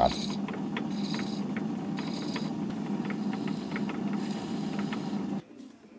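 Myford lathe running steadily with a small brass oil cup spinning in the chuck, while a file and then a scotch pad are pressed against it, giving a hissing scrape roughly once a second. The sound cuts off suddenly near the end.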